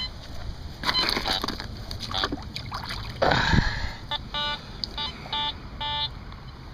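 Creek water splashing loudly about three seconds in, then a run of short, high electronic beeps from a metal detector.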